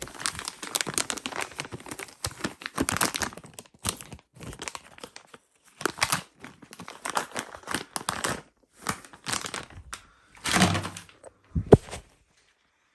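Crinkling and rubbing of wet wipes and their plastic packet while a TV remote is being scrubbed, in short irregular rustles, with one sharp knock near the end.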